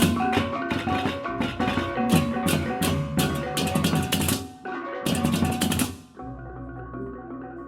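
Percussive music in the style of Balinese gamelan: drums and pitched metal tones under fast, crashing cymbal strokes. About six seconds in the cymbals and drums drop out, leaving softer sustained metal tones.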